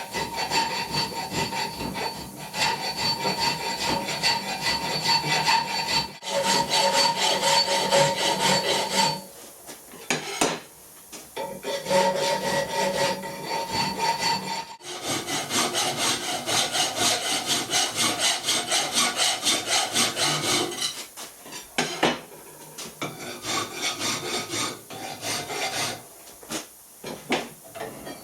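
Hand file being stroked back and forth over the edges of a hexagon cut in 1/2 inch steel plate, trimming it to fit a large nut: a run of rasping strokes in quick succession, with short pauses between spells of filing. A thin steady ringing note sounds under the strokes in the first half.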